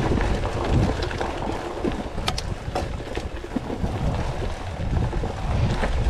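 Wind buffeting a GoPro's microphone during a mountain bike ride: a steady low rumble, with a few sharp clicks and rattles from the bike about two to three seconds in.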